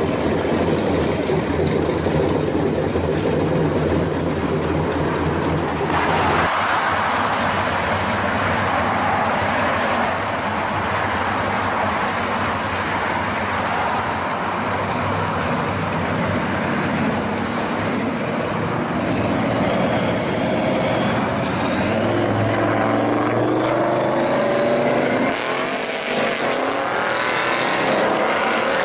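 Hot rods driving past: the supercharged engine of a classic Chevrolet pickup runs with a deep, steady note for about six seconds. Then a blue Chevrolet Nova passes and accelerates, its engine pitch rising over the last several seconds.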